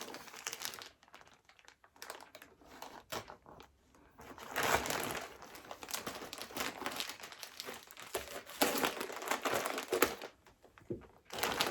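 Parcel packaging being cut and pulled open by hand, crinkling and rustling on and off, fuller and more continuous from about four and a half seconds in.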